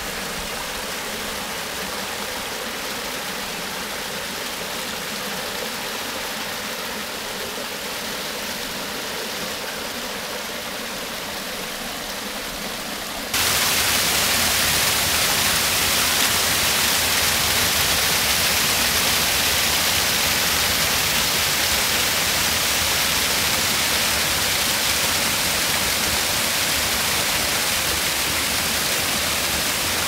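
Water of a small man-made waterfall and stream rushing steadily over rocks. A little under halfway through, it suddenly becomes louder and fuller as the cascade is heard up close.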